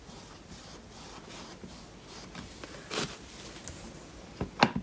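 Faint, repeated scraping strokes of a spatula spreading refill ink across a felt stamp pad, with a sharper scrape about three seconds in. Near the end come a few short knocks, as the acrylic stamp block is picked up from the table.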